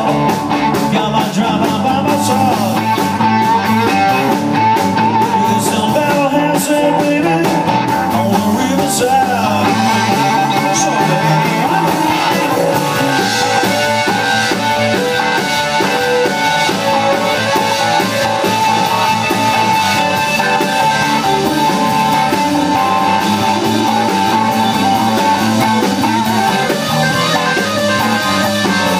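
Live rock band playing a blues-rock song: an electric guitar leads with long held and bent notes over electric bass and a drum kit.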